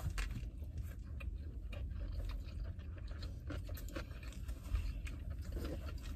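A person chewing a mouthful of sushi roll with small irregular mouth clicks, over a steady low rumble.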